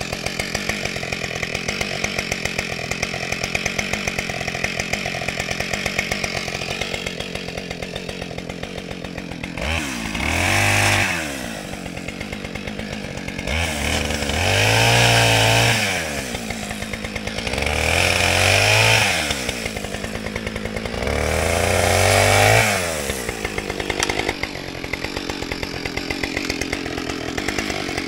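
Two-stroke chainsaw idling, then revved into a fallen log four times in a row. Each burst climbs in pitch, holds for a second or two and drops back to idle. It idles again near the end.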